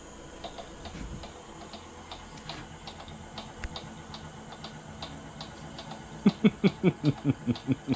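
Wood lathe spinning a heavy, out-of-round, epoxy-filled blank at low speed, with faint regular ticking. About six seconds in, a fast run of loud rhythmic thumps starts, about five a second, the sign of the low-RPM wobble of the unbalanced blank.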